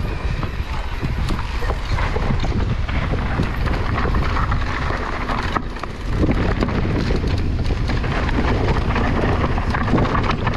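Wind buffeting the microphone while an e-mountain bike rides a trail, with tyre crunch and many short rattles and knocks from the bike over rough ground. The noise dips briefly about halfway through.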